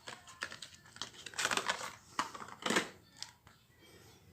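Handling noise from unpacking and testing small nano spray units: plastic packaging crinkling, with scattered clicks and short rustles.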